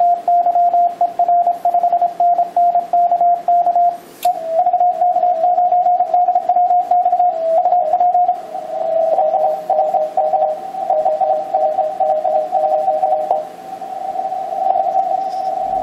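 Morse code tones from an Icom HF transceiver in CW mode. For about four seconds one steady-pitched tone keys a call, which is the operator's own transmit sidetone. After a click, several received Morse signals at slightly different pitches overlap one another, a pileup of stations calling on the band.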